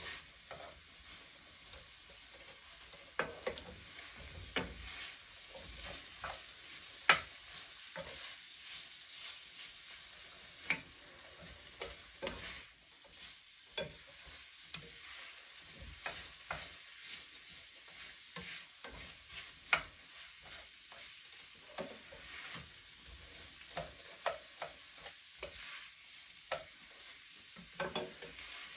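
Ramen noodles and mixed vegetables sizzling in a stainless-steel frying pan as they are stirred and tossed: a steady frying hiss with frequent sharp clicks and scrapes of the utensil against the pan.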